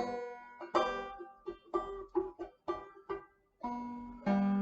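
Banjo being picked: a run of single plucked notes, each ringing and dying away quickly, then a brief pause and a held chord near the end.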